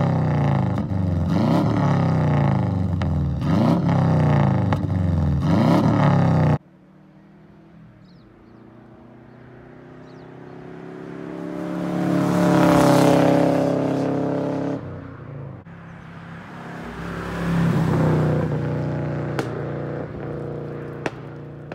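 Turbocharged Subaru Legacy flat-four with its catalytic converter deleted, revved repeatedly at the exhaust tip, about one blip a second. It cuts off suddenly, and the car is then heard driving up and passing under acceleration, loudest about halfway through, picking up again near the end.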